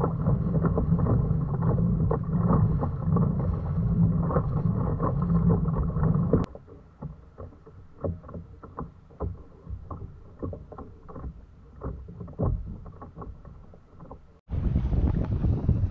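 Small waves lapping and slapping against a fishing kayak's hull, with wind on the microphone and scattered light knocks. The sound drops suddenly to quieter lapping and clicks after about six seconds, and loud wind and water noise return near the end.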